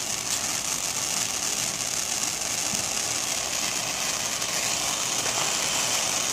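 Ground fountain firework spraying sparks with a steady hiss.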